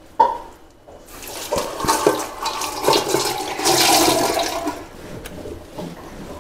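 Water running from a kitchen tap and splashing into the sink, starting about a second in and easing off after about four seconds.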